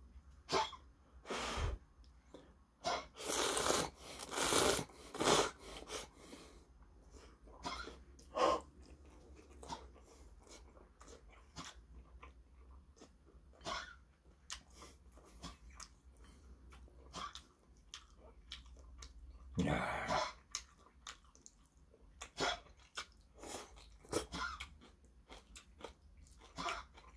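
A man slurping hot spaghetti noodles and chewing close to the microphone. A run of loud slurps comes about three to five seconds in and another around twenty seconds; between them are quieter chewing and small wet mouth clicks.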